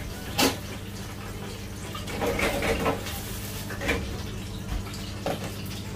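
Food-truck kitchen noise: a steady hum and hiss from the fryer and extractor. A sharp clack comes about half a second in, and a few lighter clatters follow from the foam takeaway boxes and tongs being handled.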